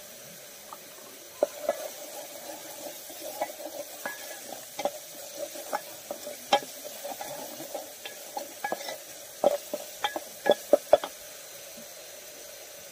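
Wooden spatula stirring and scraping spiced paste frying in oil in an aluminium pot, over a low steady sizzle. Sharp knocks of the spatula against the pot's side come throughout the stirring, in a quick run near the end, then stop.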